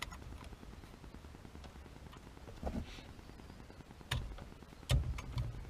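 A few knocks and dull bumps of an aftermarket steering wheel being handled and fitted onto its hub adapter, the loudest near the end, over a low steady hum.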